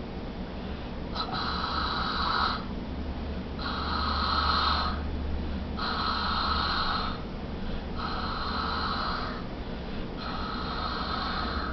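Goose call blown open-handed with the air sent through the back of the call, so the reed vibrates without breaking over: the train note, a higher-pitched, goose-like sound, given as five long notes, each over a second, with short pauses between.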